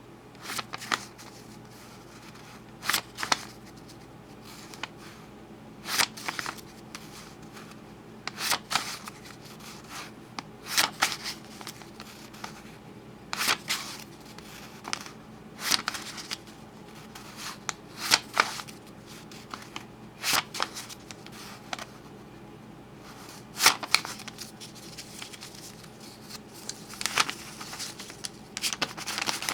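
Crisp new hundred-dollar bills flipped back and forth, making sharp papery snaps and crackles in short clusters about every two to three seconds, coming faster near the end.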